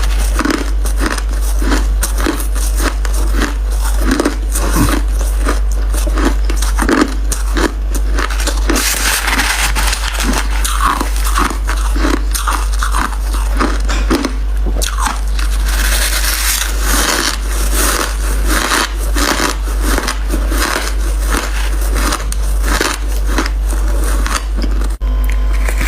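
Crunchy white crushed ice being bitten and chewed: dense, irregular crunches, several a second, over a steady low hum.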